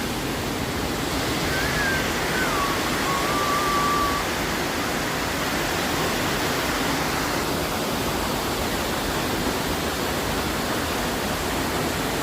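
Steady rushing noise. From about a second and a half in until about four seconds, a thin whistled note wavers up and down over it.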